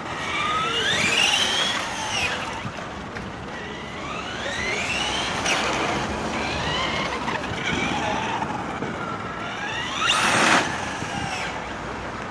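Traxxas XO-1 radio-controlled car's brushless electric motor whining as it accelerates in repeated runs, the whine rising in pitch several times. A loud rushing burst comes about ten seconds in.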